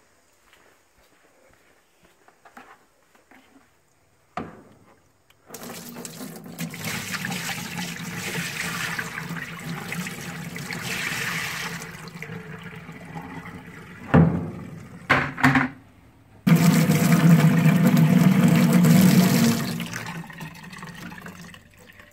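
Dirty wash water from a wet vacuum's tank being poured out into a basin: a long splashing pour, a couple of knocks, then a second, louder pour that tails off.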